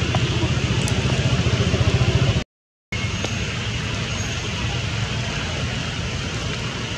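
Heavy rain falling on floodwater, a steady hiss, with a low rapid throb during the first couple of seconds. About two and a half seconds in, the sound cuts out for half a second, then the rain goes on steadily.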